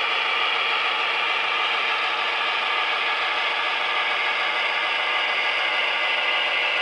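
HO-scale Atlas GP40-2W model diesel locomotive running with its train: a steady mechanical whir and clatter that does not change.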